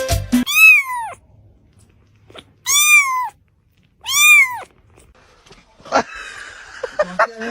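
Domestic cat meowing three times, each call rising and then falling in pitch, about a second and a half apart. A knock and some rustling follow near the end.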